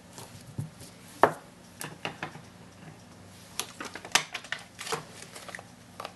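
Light plastic clicks and taps of a clear acrylic stamp block and ink pad being handled on a table, with one sharper knock about a second in and a quick run of lighter taps later on.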